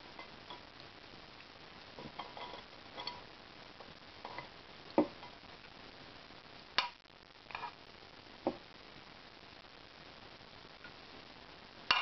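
Metal spoon scraping and knocking against a non-stick frying pan while cooked vegetables are spooned out onto a plate: scattered clinks and scrapes every second or so, with sharper knocks about five and seven seconds in and at the very end.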